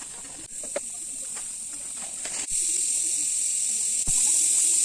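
A steady high-pitched hiss that jumps abruptly louder about two and a half seconds in and again near the end, with a few faint clicks and a short thump where it jumps.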